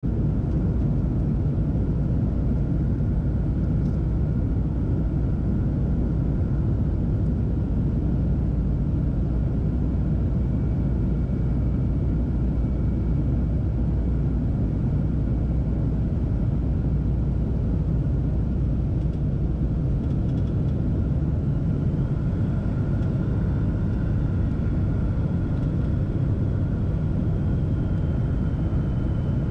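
Airliner cabin noise at a window seat on approach: a steady rumble of engines and airflow, with faint steady whines, and a higher faint whine joining about two-thirds of the way in.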